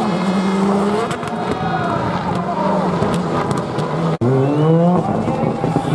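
Rally car engine running hard at high revs as a Škoda Fabia rally car passes and pulls away. After an abrupt cut about four seconds in, a rally car engine's revs climb steeply as it accelerates.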